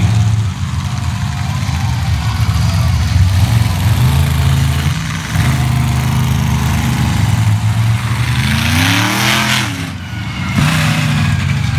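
Monster truck engines running with a deep, steady sound, and one revving up in a rising pitch near the end before briefly dropping off.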